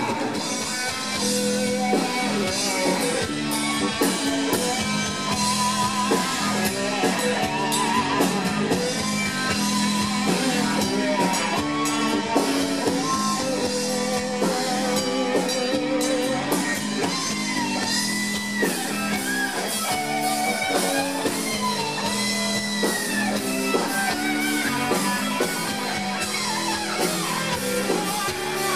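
Live rock band playing: electric guitar lead line with bends and vibrato over drum kit and bass.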